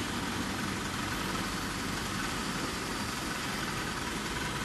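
Diesel engine of a Zoomlion ZR185 rotary piling rig idling steadily.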